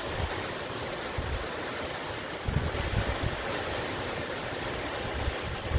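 Wind buffeting the microphone in low gusts over a steady outdoor hiss.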